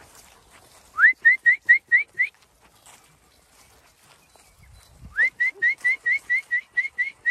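Shepherd whistling to drive the ewe flock in: two runs of short, clipped notes, about five a second, each run opening with one rising note. The first run comes about a second in, the second about five seconds in.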